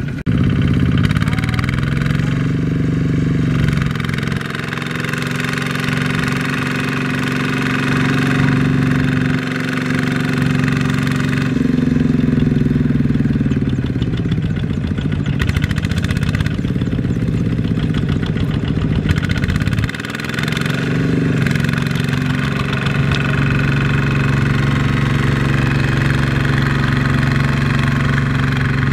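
Single-cylinder diesel engine of a two-wheel walking tractor running under load as it hauls a loaded trailer, its pitch dipping and rising several times around the middle.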